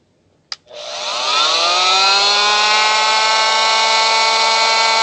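Rockwell Sonicrafter F30 oscillating multi-tool switched on with a click about half a second in, its motor winding up in pitch over about a second and then running steady with a triangular sanding pad fitted, the pad oscillating free in the air.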